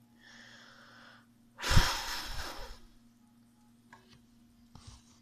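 A person breathing out: a soft breath, then a loud, gusty exhale straight onto the microphone about a second and a half in.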